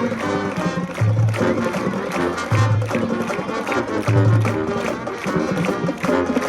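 High school marching band playing, brass over percussion, with a strong low bass note coming back about every one and a half seconds.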